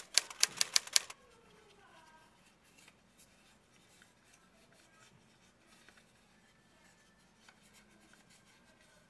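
A rapid run of about seven sharp clicks in the first second, then only faint, scattered soft clicks.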